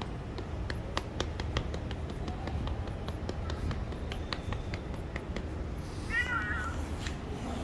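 A tabby cat gives one short, wavering meow about six seconds in. Before it come a series of light clicks.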